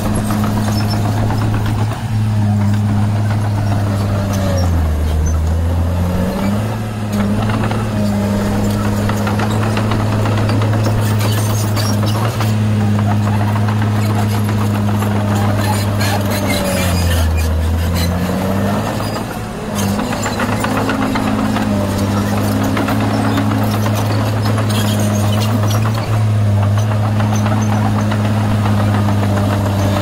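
Komatsu D20 crawler bulldozer's diesel engine running steadily under load as it pushes dirt, its pitch dropping briefly twice: about five seconds in and again around seventeen seconds.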